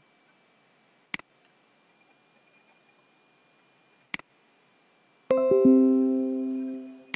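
Two sharp mouse clicks about three seconds apart, then a Windows notification chime: a few quick notes that ring together and fade over about two seconds, signalling a simulation-warning pop-up.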